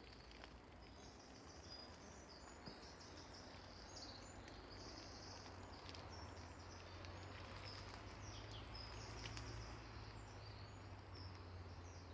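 Faint birdsong: small birds chirping and twittering in many quick, short calls, over a low steady hum.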